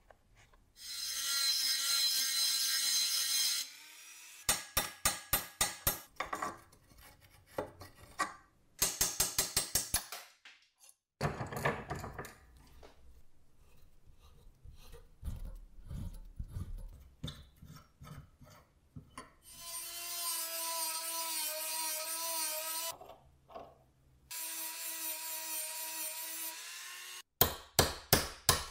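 High-speed rotary tool running in three steady bursts, cleaning rusty metal parts. Between the bursts come quick rows of sharp hammer taps on a metal punch, and another row near the end.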